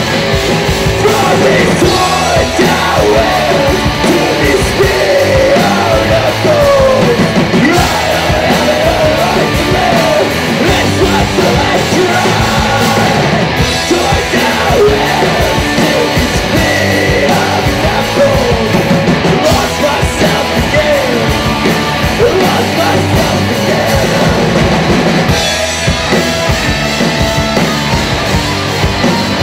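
Live rock band playing loud: electric guitars, bass guitar and a Mapex drum kit.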